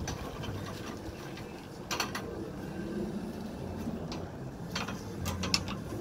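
Sawmill band saw blade handled and set into a blade sharpener's clamp and guide: scattered metallic clicks and rattles, a cluster about two seconds in and several more near the end.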